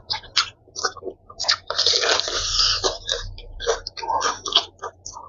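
Close-up eating sounds of crispy breaded fried chicken: irregular crunching and crackling of the breading as it is chewed and torn apart, loudest and densest for about a second around the middle.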